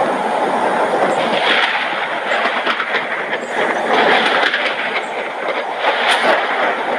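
Heavy rain falling during a thunderstorm: a loud, steady hiss dotted with the ticks of drops striking surfaces, swelling in gusts a few times.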